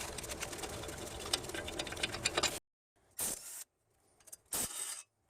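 Long-handled ratcheting box wrench clicking rapidly as a wheel hub bolt is worked loose. The clicking cuts off suddenly about halfway through, followed by two short bursts of clicking.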